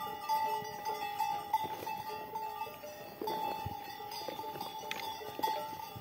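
Cowbells on grazing cattle clanking irregularly as the animals move and feed, short ringing notes coming every half second or so with some overlapping.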